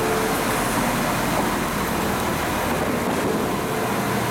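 Irish Rail 22000 class InterCity railcar standing at the platform with its underfloor diesel engines idling, a steady hum under a wash of station noise.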